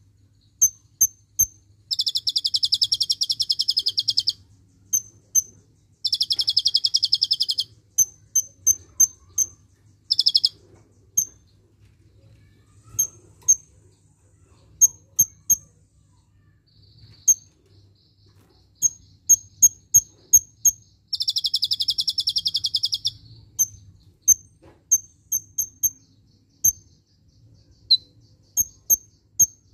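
Kolibri ninja (Van Hasselt's sunbird) singing: a string of sharp, high single chips, broken several times by rapid buzzing trills of up to about two seconds.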